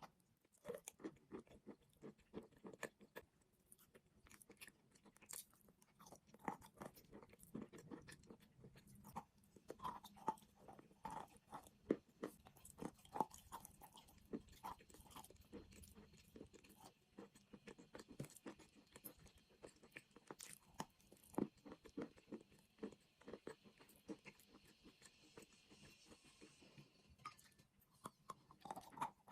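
A person chewing chalk and clay, with many small, sharp, irregular crunches.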